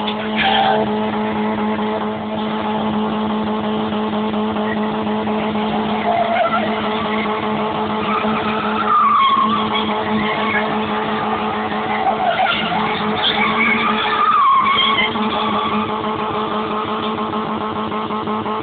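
BMW E30 doing a burnout: the engine is held at steady high revs while the rear tyres spin and squeal on concrete. The squeal swells and wavers, loudest around nine and fourteen seconds in.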